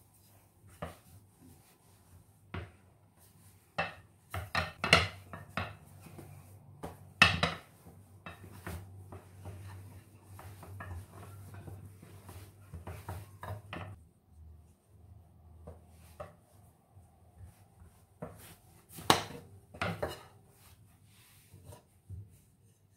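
Kitchen dishes and utensils handled: irregular clinks and knocks as things are picked up and set down, busiest in the first half, with two louder knocks, one about seven seconds in and one near the end.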